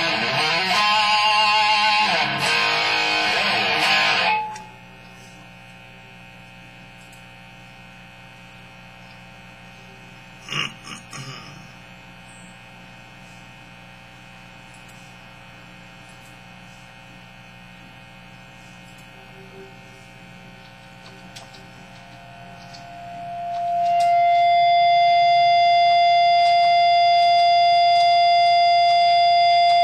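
Distorted electric guitar played through a Peavey amp and speaker cabinet, breaking off about four seconds in, leaving only a low steady amp hum with a brief plucked note. Near the end a single high note swells in and sustains loudly without fading.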